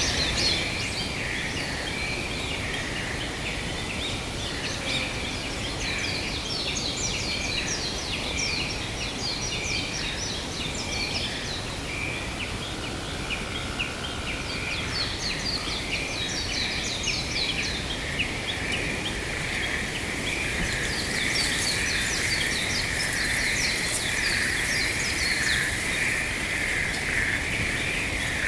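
Forest ambience: many birds chirping and twittering over a steady wind-like rush. A continuous frog chorus runs underneath and grows louder in the last third.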